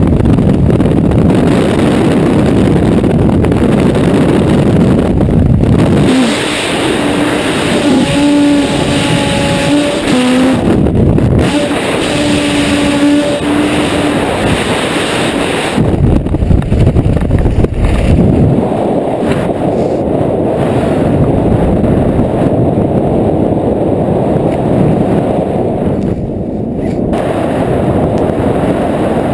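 Wind rushing over a helmet camera's microphone in a head-down skydiving freefall, dropping away about six seconds in. A few held tones sound between about 8 and 14 seconds, then a steadier, softer wind noise follows, in keeping with a skydiver under an open parachute.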